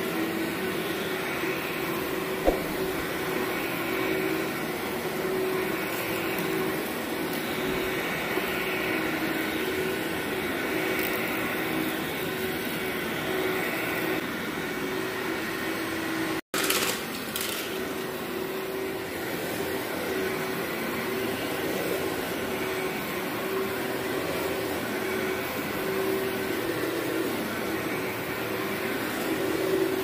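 Upright vacuum cleaner, the Workhorse, running steadily over carpet, a continuous motor drone with a steady hum. There is a sharp click about two seconds in, and the sound cuts out for an instant about halfway through before the same drone carries on.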